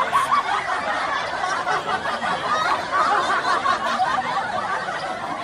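Many people's voices chattering at once, overlapping so that no single speaker stands out.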